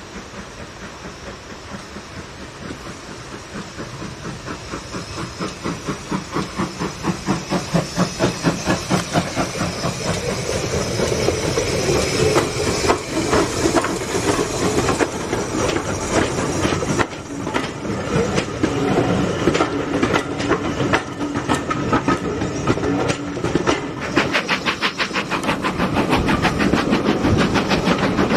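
Ivatt Class 2MT 2-6-2T steam tank locomotive 41241 working a train, its exhaust beats getting louder as it approaches, about three a second. Then the coaches roll past, with wheels clicking over the rail joints. Near the end come quicker exhaust beats heard from on board the train.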